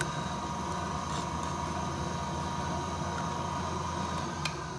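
Bridgeport milling machine running with its spline-cutting (slotting) attachment, the cutter stroking in a small hole to cut a spline in a stainless steel part: a steady mechanical whine over a low hum. A click comes near the end, and then the machine begins to wind down.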